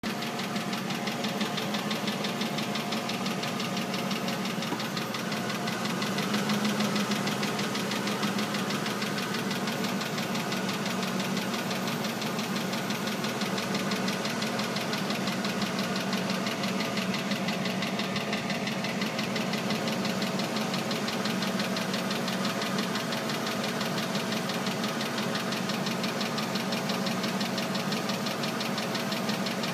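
Oldsmobile Aurora engine running with a fast, rhythmic clicking from the engine bay and underneath the car. The clicking is rotational and changes with engine RPM; its cause has not been found.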